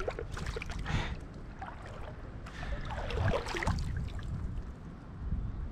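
Water splashing and sloshing as a hooked green sunfish thrashes at the surface of shallow creek water and a hand reaches in to grab it, in two bouts, with wind rumble on the microphone.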